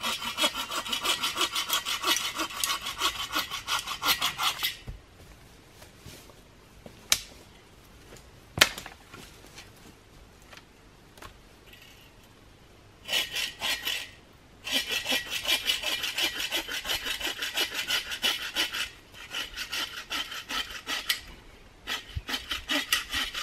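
Hand saw cutting through a dead wooden pole for firewood with quick, even back-and-forth strokes in several runs. Partway through there is a pause of several seconds that holds two sharp knocks.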